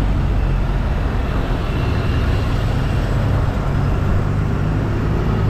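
Steady low rumble of road traffic mixed with wind on the microphone while cycling.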